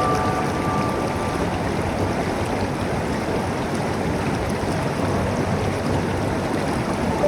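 River water flowing steadily, a continuous even rush. A held musical note fades out in the first second or so.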